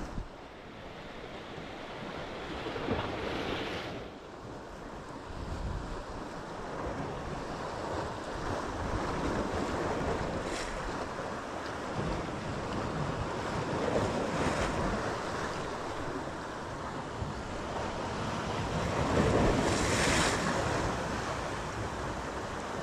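Sea waves washing and foaming against shoreline rocks, surging and easing several times, with wind buffeting the microphone. The loudest surge comes near the end.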